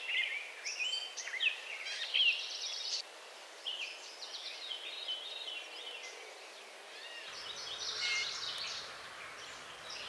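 Several songbirds chirping and singing, short high calls and trills overlapping one another.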